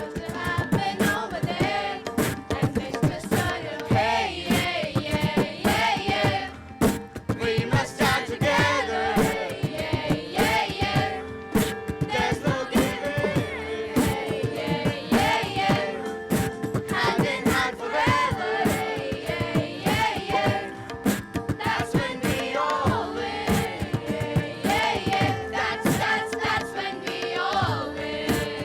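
Music: a song with singing over a steady, driving percussion beat.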